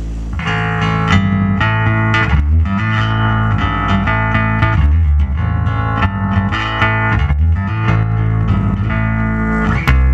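1973 Fender Precision Bass played through a Fender Pro Reverb amp into an Ampeg bass cabinet: a run of plucked notes, each with a strong low tone and bright overtones, changing every half second to a second.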